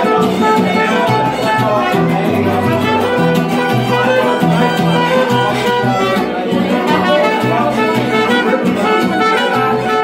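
Live mariachi band playing at close range: violin melody over a strummed guitar rhythm and a guitarrón bass line.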